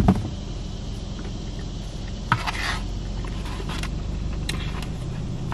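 A fork scraping and rubbing in a foam takeout container, with a click at the start, a short scrape a little past halfway and a few light ticks, over a steady low hum inside a car.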